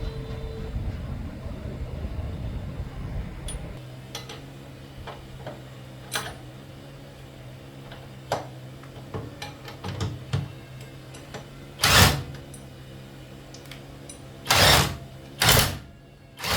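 A motor runs with a steady low hum, heavier for the first few seconds, while scattered metal clicks and knocks sound over it. Louder bangs come about twelve seconds in and twice more near the end.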